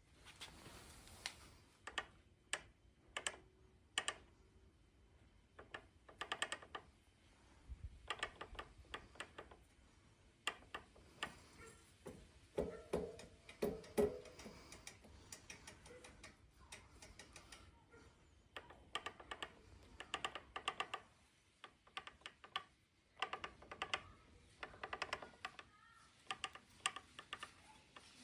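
Specialized Levo Gen 4 e-bike's Specialized 3.1 motor knocking and rattling as the cranks are turned backwards: runs of quick clicks with short pauses between, and a few louder, deeper knocks around the middle. Specialized considers this rattle normal, not a fault.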